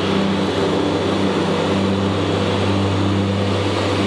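Steady mechanical drone at an even pitch, unchanging throughout.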